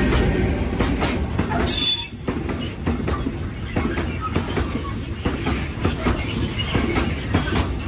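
Loaded open freight wagons rolling past at close range, their wheels clicking over the rail joints in a steady run of knocks, with a brief high-pitched wheel squeal about two seconds in.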